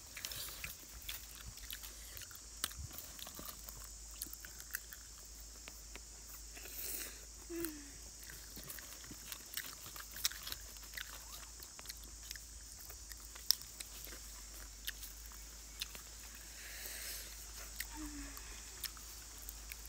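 People chewing and biting crispy deep-fried chicken wings, with scattered sharp crunches of the fried skin. A steady high hiss runs underneath.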